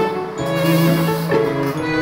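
Background instrumental music with sustained notes that change every half second or so.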